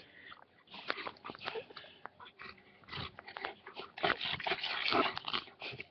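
American bulldog snuffling and mouthing close to the microphone: irregular clicks and short breathy bursts, busier and louder in the second half.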